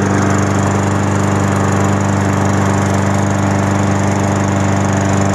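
Walk-behind gas lawn mower engine running at a steady speed.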